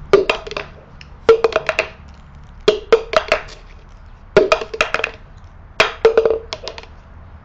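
A cup being tapped and knocked on a tabletop by hand in a repeating rhythm: a quick cluster of sharp, hollow knocks about every one and a half seconds.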